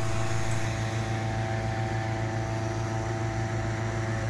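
Petrol engine of a hot-air balloon inflator fan running steadily at speed, a low hum with a fast even pulse, blowing cold air into the balloon envelope during cold inflation.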